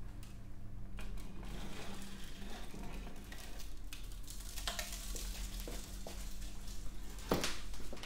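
Electric furnace opened: material burning in the red-hot chamber crackles and sizzles over a steady low hum, then a hard clunk about seven seconds in as the insulating-brick door is shut.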